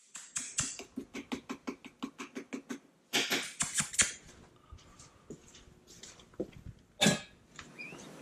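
A dog huffing rapidly and rhythmically, about six breaths a second, then a few louder snuffles around three to four seconds in, with a sharp knock near seven seconds.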